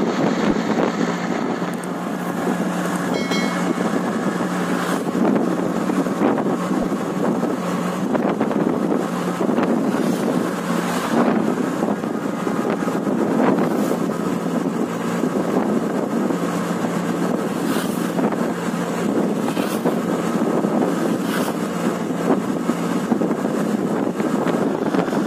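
Wind rushing over the microphone from a moving road vehicle, with a steady engine drone underneath.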